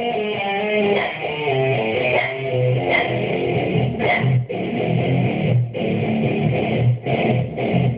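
Guitar-driven rock music, an electric guitar playing over bass and drums with a steady beat.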